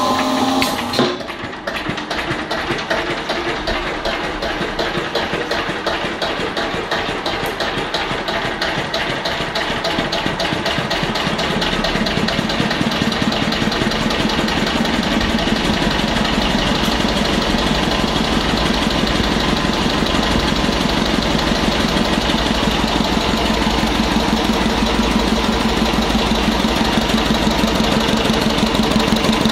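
Single-cylinder Listeroid diesel engine started on a crude oil and kerosene fuel blend: a short rising whine as it is spun over, then about a second in it catches and runs with a regular firing beat. It grows louder over the first ten seconds as it comes up to speed driving a generator under a 3 kW load, then runs evenly.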